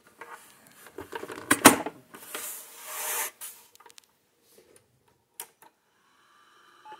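A plastic cartridge pak, the Radio Shack floppy disk controller, is pushed into the TRS-80 Color Computer 2's cartridge slot: plastic scraping and rubbing, with a sharp click as it seats about a second and a half in. A couple of light clicks follow later, and a steady hum starts just at the end.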